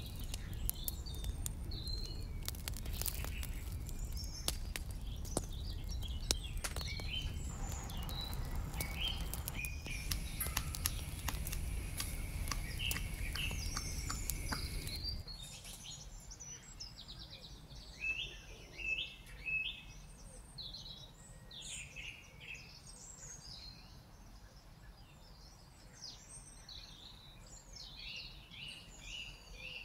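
Small birds chirping and twittering throughout. For the first half they sit over the low rumble and crackle of a small wood fire and the clicks of a wooden spoon and lid on a miniature aluminium pot. The rumble and clicks stop abruptly about halfway through, leaving the birdsong.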